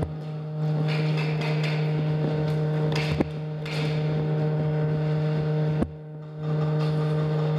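A steady low hum with several evenly spaced overtones, broken by two sharp clicks about three and six seconds in; the hum drops out for about half a second after the second click.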